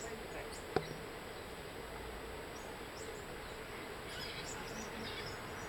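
Faint outdoor background noise with a single sharp click or smack just under a second in.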